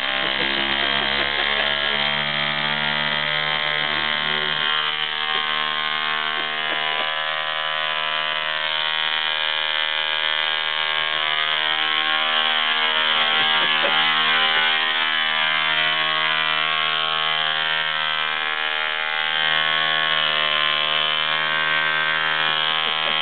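Model airplane diesel engine running steadily at full throttle, its propeller spinning: a loud, even buzzing drone that holds one pitch and wavers slightly near the end.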